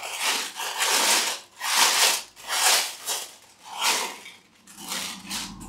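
Plastic packaging rustling and crinkling as it is handled, in a run of short uneven swells.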